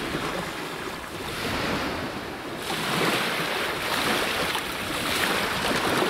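Small sea waves breaking and washing up a sandy shore, with some wind on the microphone. The surf gets louder about two and a half seconds in.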